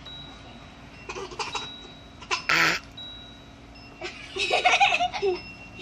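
A single short burp for the baby doll, about two and a half seconds in, followed by about a second of laughter and giggling.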